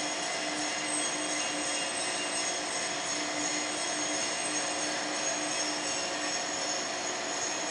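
Steel coil slitting line running: a steady machine noise with several held high whines and a lower hum that pulses on and off, as the steel strip unwinds off the coil and feeds through the line.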